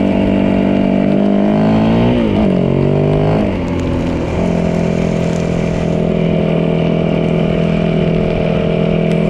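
Yamaha 450 dirt bike's single-cylinder four-stroke engine running under way. Its pitch dips and climbs back between about two and three and a half seconds in, then holds steady.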